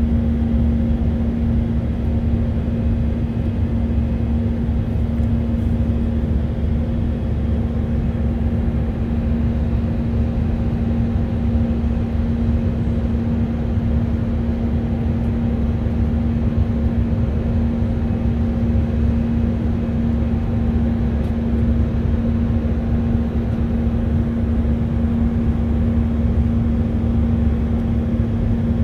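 Cabin noise of an Airbus A319-132 climbing: its IAE V2500 turbofan engines drone steadily under the wing, a deep rumble with a constant hum over it.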